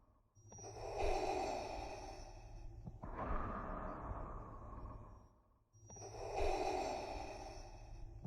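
Darth Vader's respirator breathing: slow, hissing mechanical breaths through the mask, each about two and a half seconds long. A full in-and-out cycle is followed by the next breath, with a brief silent pause before each cycle.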